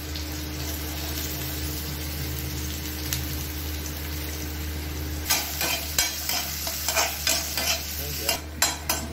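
Chopped onions sizzling in hot oil in a metal kadhai as the tempering for dal is fried. From about five seconds in, a slotted metal spatula scrapes and knocks against the pan in quick repeated strokes as the onions are stirred.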